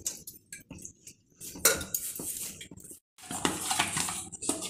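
Hand mixing and kneading wheat flour dough in a stainless steel bowl: fingers scraping through the flour and the bowl clinking and knocking on the counter, unevenly, with a short break about three seconds in.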